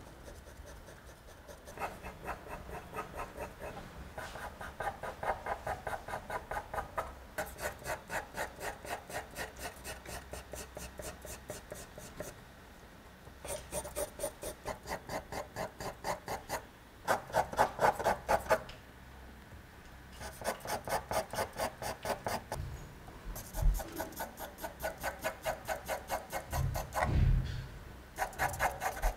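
Pencil scratching quickly back and forth on paper in shading strokes, about four a second, in spells of a few seconds with short pauses between. Two low thumps come in the last few seconds.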